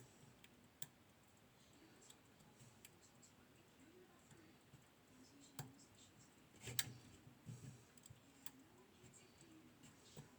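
Faint, scattered clicks and scrapes of a flag lock pick and tension tool working the pins of a Mul-T-Lock 7x7 pin-tumbler lock, with the sharpest click about seven seconds in.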